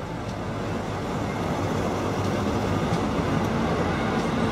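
British Rail High Speed Train passing close by on the station line: the diesel power car's engine running as it goes by, then its coaches rolling past on the rails, the noise growing steadily louder.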